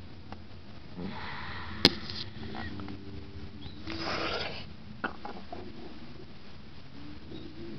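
A lizard crunching a mouse in its jaws: two sharp cracks, the louder one about two seconds in and another about five seconds in, with spells of breathy noise between them.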